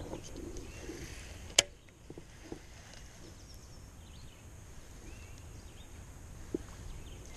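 Quiet outdoor ambience with one sharp click about a second and a half in, followed by a few lighter ticks.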